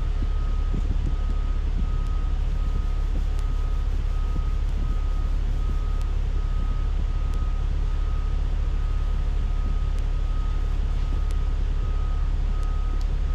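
Inside a moving city bus: a steady low engine and road rumble, with a high electronic beep repeating evenly a little more than once a second.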